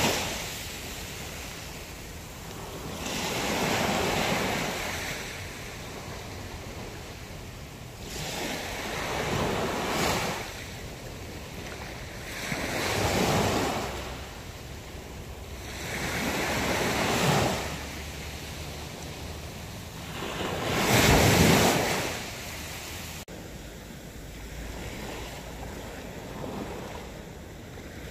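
Small sea waves breaking and washing up a shell-strewn beach, one surge about every four seconds, five in all, the loudest about three-quarters of the way through.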